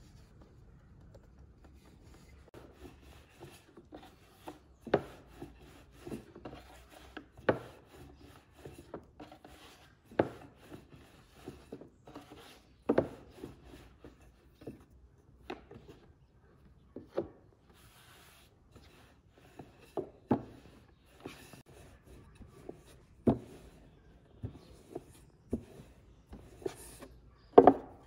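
Long wooden rolling pin rolling dough out thin on a wooden tabletop: soft rubbing with irregular wooden knocks every second or two, the loudest near the end.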